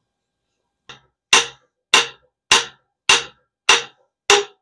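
Hammer striking a cam bearing driver to knock an old cam bearing out of the engine block: a light tap, then six sharp metallic blows at a steady pace, about one every 0.6 seconds.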